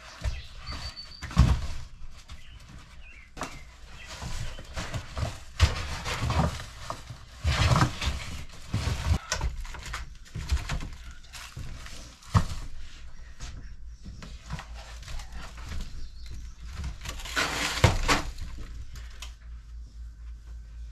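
Frozen wrapped packages and fabric storage bins being handled and set into a chest freezer: irregular knocks and thuds with rustling of the wrapping and bins.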